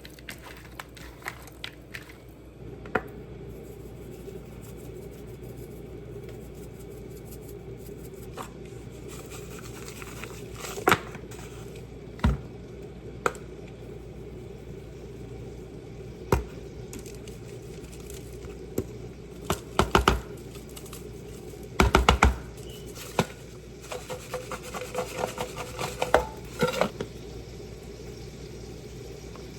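Kitchen utensils and dishes knocking and clinking now and then while seasoned raw shrimp are mixed by hand, over a steady low hum. The loudest knocks come in two quick clusters a little past the middle.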